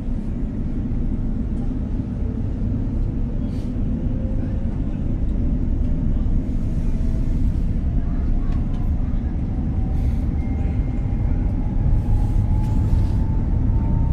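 Electric commuter train heard from inside the carriage: a steady low rumble of wheels on track, with a motor whine that rises slowly and steadily in pitch as the train picks up speed.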